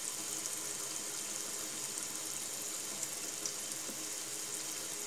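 Kitchen faucet running a thin spray of water into a stainless steel sink: a steady hiss of water splashing on the metal.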